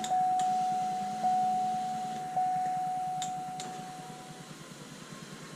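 A single-pitched chime tone, renewed about once a second three times, then fading out about four seconds in. There are a couple of light clicks near the middle.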